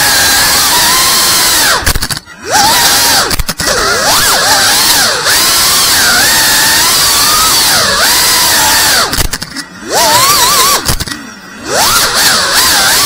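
FPV quadcopter's brushless motors whining, the pitch rising and falling with throttle. The whine drops off sharply four times, about two seconds in, at three and a half seconds, and twice near the end, as the throttle is chopped for gaps, then picks straight back up.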